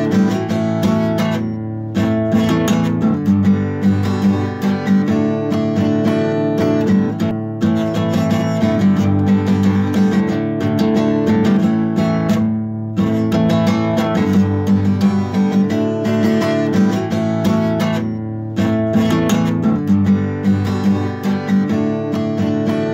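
Background music led by strummed acoustic guitar, with a steady rhythm.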